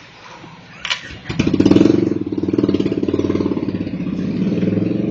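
An engine starts about a second in and then runs with a fast, even pulse.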